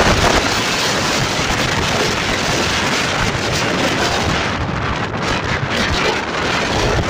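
Strong wind buffeting a phone's microphone: a loud, steady rushing noise.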